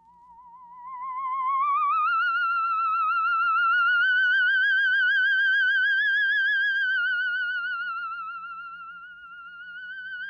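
High ghost sound effect: an eerie, wavering electronic tone with a fast vibrato that glides up out of silence over the first two seconds, hangs high, sags and fades around nine seconds in, then swells again.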